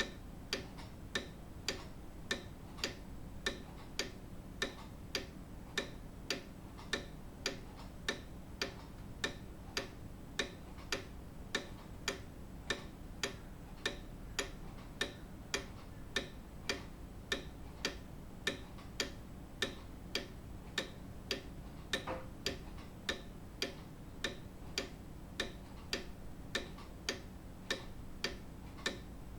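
Grandfather clock's pendulum escapement ticking at an even, steady beat.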